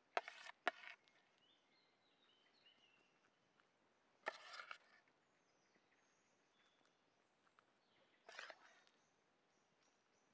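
A metal spoon scraping and clinking in a metal pan while scooping stuffing into a bell pepper. It starts with two sharp clicks, then comes in short bouts about four seconds apart, with faint bird chirps in between.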